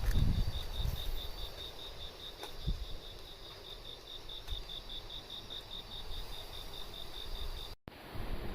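Cricket chirping in an even, high-pitched pulse train of about five pulses a second, over low wind rumble that is strongest at the start. The sound cuts off near the end.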